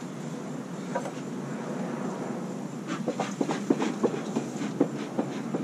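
A steady low hum of honeybees around the opened hives. From about three seconds in, quick irregular clicks and clacks come from the beekeeper's bee smoker as he works it in his hands.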